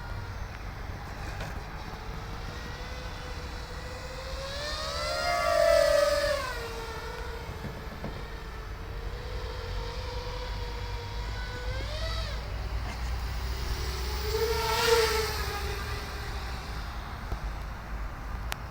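FPV racing quadcopter's brushless motors and propellers whining as it flies, the pitch swinging up and down with the throttle and two loud close passes about six and fifteen seconds in. A low rumble runs underneath.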